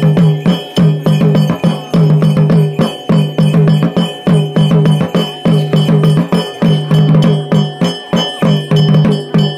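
Loud rhythmic drumming: a fast, steady beat of sharp strokes over a repeating deep drum tone.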